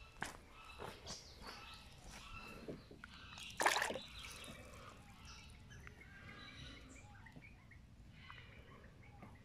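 Short, high chirping calls repeated throughout, with one brief splash of water about three and a half seconds in, the loudest sound.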